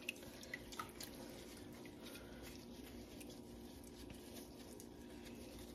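A few faint drips of whey in the first second as mozzarella curd is worked and dipped in hot whey, over a steady low hum.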